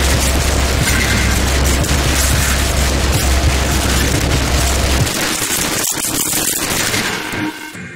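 Harsh electronic noise music: a dense wall of distorted noise over a heavy low bass drone, which cuts out about five seconds in and leaves thinner noise that dips near the end.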